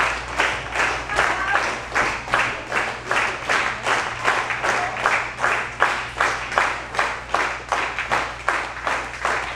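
A group clapping together in a steady, even rhythm, about three claps a second.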